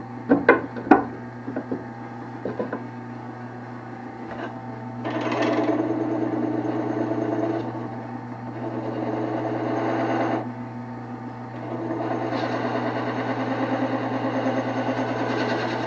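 Wood lathe running with a steady hum, with a few sharp knocks in the first second. A turning tool then cuts the spinning Osage orange blank in two long passes with a rough, fluttering sound, from about five to ten seconds and again from about twelve seconds on.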